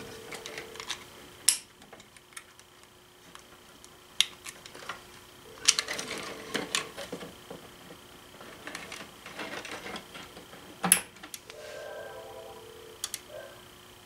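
Clicks and rattles of telephone cords and modular plugs being handled at a phone wiring block. A short steady tone sounds three times, about six seconds apart, in the cadence of a telephone line being rung during a test call.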